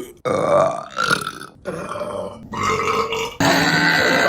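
A string of women's burps: about four short ones, each under a second, with brief gaps between them, then a longer drawn-out burp that starts suddenly near the end.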